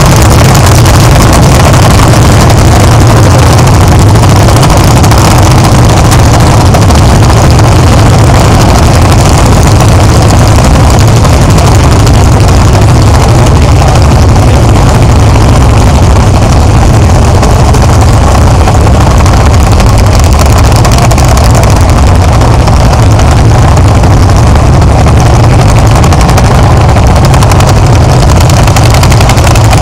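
Several vintage hot-bulb tractors, Lanz Bulldog single-cylinder two-stroke engines, running hard together under heavy load as they pull laden trailers. A loud, steady, low engine sound that does not let up.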